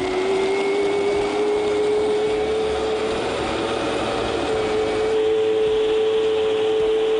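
High-speed countertop blender running at full speed, blending steamed soybeans, cashews and sesame with water into soy milk. It is a steady, loud motor whine whose pitch rises slowly.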